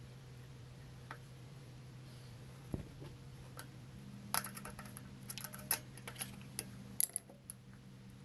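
Metal hand tools and hardware clicking and clinking as the kickstand is unbolted from a Yamaha TT-R110 dirt bike: a single dull knock about three seconds in, then a run of short sharp clinks from about four to seven and a half seconds, over a steady low hum.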